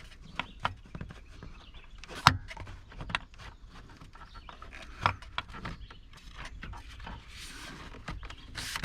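Plastic dash trim panel being handled and pressed into its retaining clips: scattered knocks and clicks, the loudest about two seconds in, with a soft rustle near the end.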